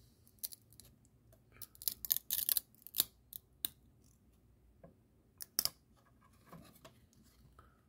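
Trading cards being handled, slid and flicked off a small stack: a scattered run of short, crisp scrapes and clicks, busiest about two seconds in and again around five and a half seconds.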